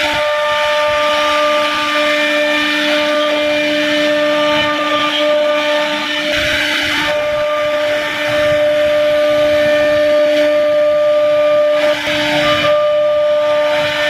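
CNC router spindle running with a steady high whine while the bit cuts grooves into a wooden panel, with a hiss of cutting under it. The tone wavers briefly about halfway through and again near the end.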